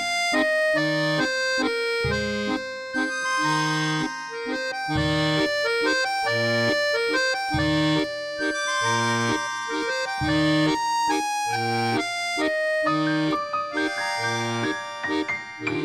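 Accordion music: a melody over a steady bass-note-and-chord accompaniment, with a low bass note about every second and a held chord near the end.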